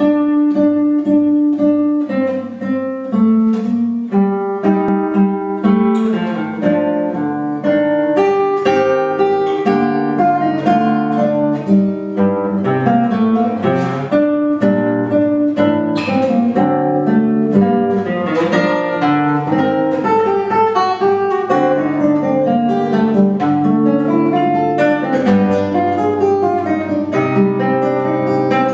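Classical nylon-string guitar played solo: a steady flow of plucked melody notes over lower bass notes.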